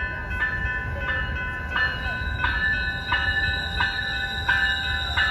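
Railroad grade-crossing warning bell ringing in an even beat, about three strikes every two seconds, over the low rumble of a train on the line.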